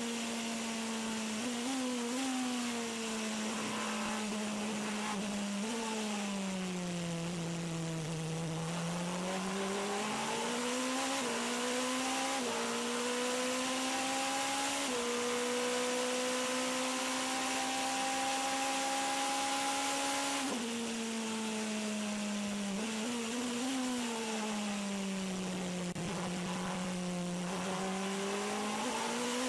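Toyota TS040 Hybrid LMP1 prototype's V8 engine at racing speed, heard onboard over steady wind and road noise. The engine note falls as the car slows for corners, once about a third of the way in and again after a sudden drop about two-thirds in, then climbs again in steps through the gears as it accelerates.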